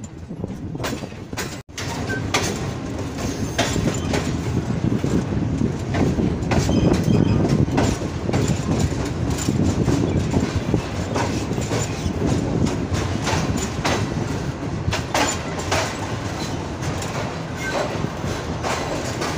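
Passenger train coaches rolling along a station platform: a steady rumble from the wheels and running gear, with irregular clicks and clunks as the wheels cross rail joints and faint wheel squeal.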